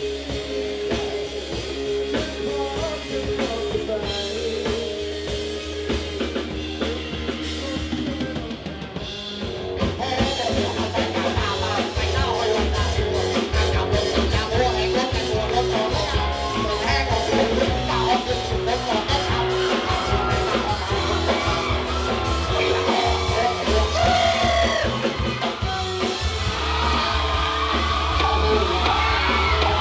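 Live band music: a male singer over electric guitar, bass guitar and drum kit. About ten seconds in it cuts to a different, louder song with a similar line-up of vocals, electric guitar and drums.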